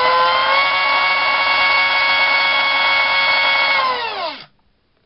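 A2212 2700kv brushless outrunner motor spinning a Gemfan 4045 propeller: a high whine with propeller rush, still rising in pitch for the first half second, then holding steady, then winding down and stopping about four and a half seconds in. It sounds a bit rough, which the tester puts down to bearings that need oil.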